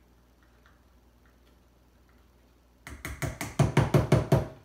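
Hammer driving a nail through a plastic jug lid on a cutting board. Almost three seconds of near quiet, then a quick run of about a dozen sharp blows, roughly six a second.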